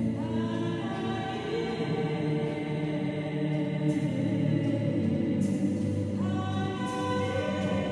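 A woman's solo voice sings a melody into a microphone over sustained low choral chords. She starts a new phrase with a slide up in pitch at the very start and again about six seconds in.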